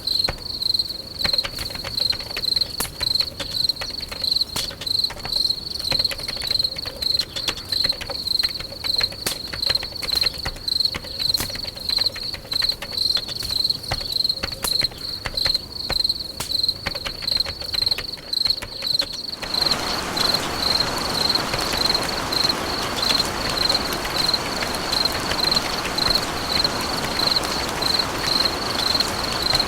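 Cricket chirping in a steady, even rhythm of high-pitched pulses, a little under two a second. About two-thirds of the way through, a steady hiss comes in suddenly beneath it.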